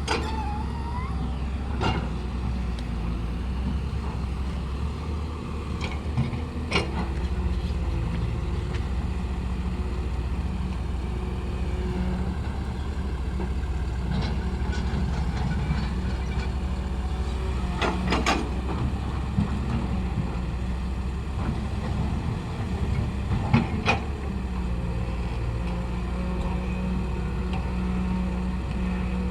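An engine running steadily with a low, even drone, with a few sharp knocks or clanks about 2, 7, 18 and 24 seconds in.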